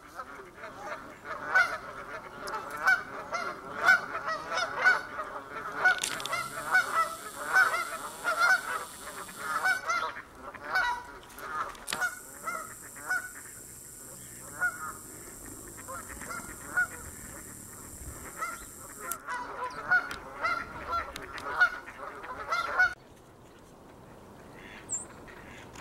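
Flock of Canada geese honking, many short calls repeating and overlapping, breaking off abruptly a few seconds before the end. The geese are sounding off at a person standing nearby.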